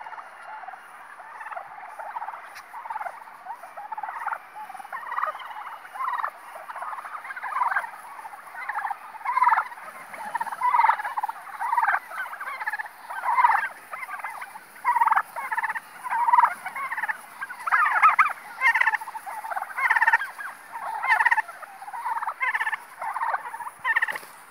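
A large flock of domestic turkeys gobbling, many calls overlapping in a constant chorus that grows louder in the second half, with single gobbles standing out.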